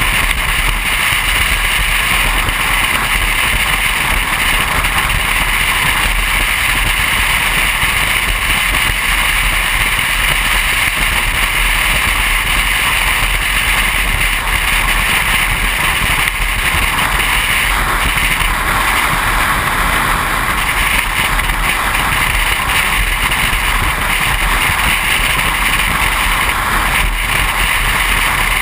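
Steady wind and road noise of a car driving at highway speed, an even rushing with a low rumble underneath.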